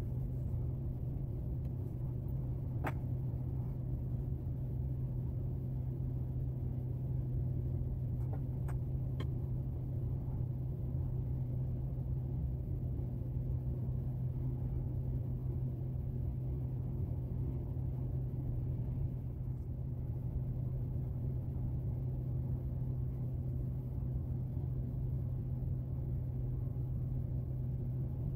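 Steady low hum throughout, with a few light clicks about three seconds and nine seconds in from brass clock wheels being handled and lifted off the movement plate.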